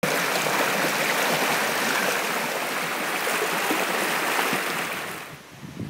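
Mountain stream rushing over rocks in shallow rapids: a steady, loud rush of water that dies away near the end.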